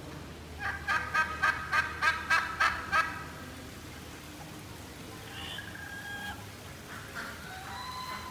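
White domestic turkey tom gobbling: a rattling run of about eight quick notes lasting a couple of seconds, followed by a few fainter calls.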